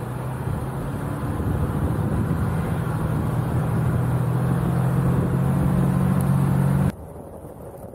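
Jeep Wrangler driving slowly along a gravel trail: a steady engine hum with tyre noise that grows gradually louder. It cuts off suddenly about seven seconds in.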